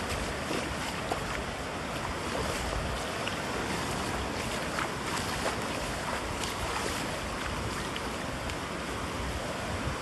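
Gentle ocean surf washing steadily onto a sandy beach: a continuous hiss of small breaking waves with no single loud crash, and a few faint ticks scattered through it.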